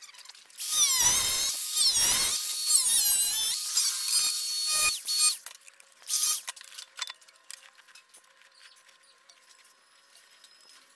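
A power cutting tool whines as it cuts into a stainless steel exhaust silencer box, opening it to pull out the packing. Its high pitch wavers under load for about four and a half seconds with a brief dip, then a short second burst about six seconds in. Only faint clicks follow.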